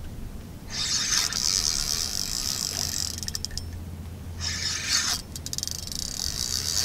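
Fishing reel's drag buzzing in three runs as a hooked cow ray pulls line off the spool. The first run lasts about two and a half seconds, the second is short, and the third starts near the end.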